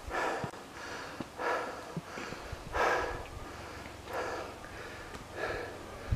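A hiker breathing hard while walking a trail, a breath roughly every second and a half.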